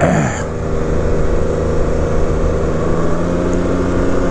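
Can-Am Ryker three-wheeler's engine pulling steadily as the trike accelerates from low speed, its note holding a nearly steady pitch while the road speed rises. Wind noise runs over it.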